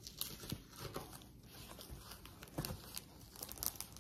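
Tape being peeled off a paper envelope, with irregular crinkling of paper. The tearing noise is the tape coming away, not the paper ripping.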